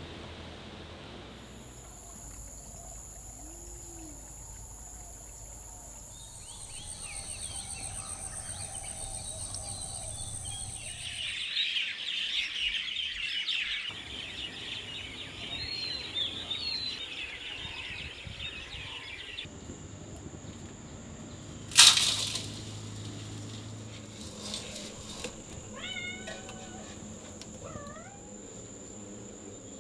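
Countryside ambience: insects keep up steady high-pitched trills while birds chirp, with a dense flurry of chirping from about twelve to nineteen seconds in and short calls near the end. A single sharp click cuts through about two-thirds of the way in.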